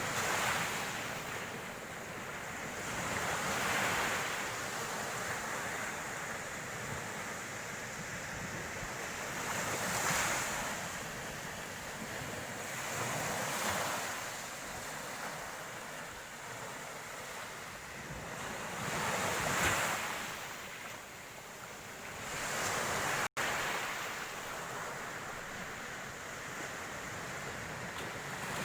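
Surf breaking on a beach, the wash swelling and fading every few seconds. The sound cuts out for an instant late on.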